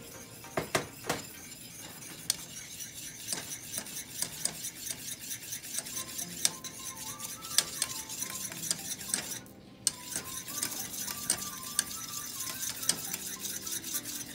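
Wire whisk beating gravy in a stainless steel saucepan, the wires clicking and scraping against the pan in quick, uneven strokes, with a short pause about nine and a half seconds in.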